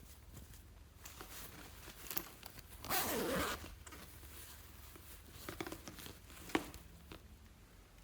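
Slime and its containers being handled: a short, loud tearing-like rasp about three seconds in, scattered soft rustles, and a sharp click about two-thirds of the way through.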